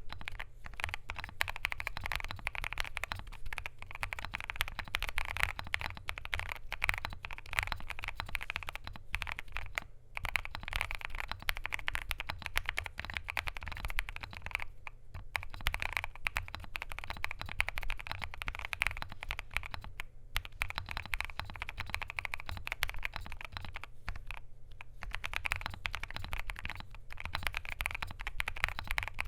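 Fast continuous typing on a KBDfans Tofu65 2.0 mechanical keyboard with lubed, filmed WS Morandi linear switches, PBT keycaps and a polycarbonate plate. The keystrokes come as a dense patter, with a few brief pauses.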